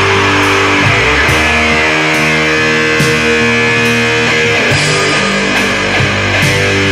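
Heavy metal song: electric guitars and bass holding long, slowly changing chords, with a sharp struck accent a little more than once a second.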